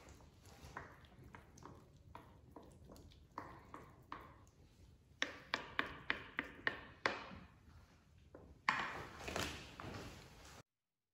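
Cooked trofie pasta knocked out of a plastic colander into a stainless steel bowl: light scrapes and clicks, then a quick run of about seven sharp metallic taps as the colander and spoon knock against the bowl. A louder clattering rustle follows near the end, and the sound cuts off abruptly.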